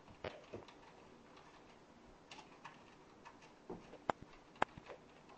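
Scattered light clicks of computer keys and a mouse, with two sharper clicks about four and four and a half seconds in.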